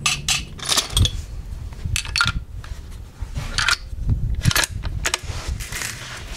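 Sharp metallic clicks and knocks, about a dozen at uneven intervals, from a Savage 111 bolt-action rifle being handled after a shot, over a steady low rumble of wind on the microphone.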